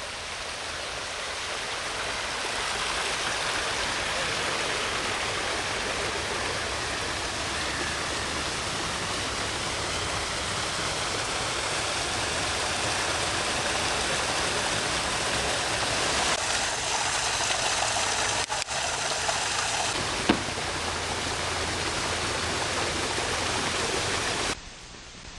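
Water rushing in a small cascade pouring down a stone wall into a rocky brook, a steady splashing that swells over the first few seconds. A single sharp click about twenty seconds in.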